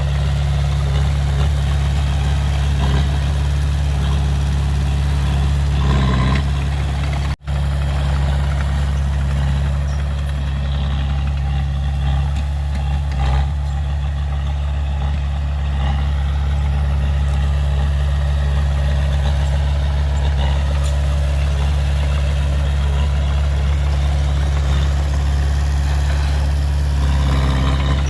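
Heavy earth-moving machinery's diesel engine running steadily, a deep constant drone that cuts out for an instant about seven seconds in.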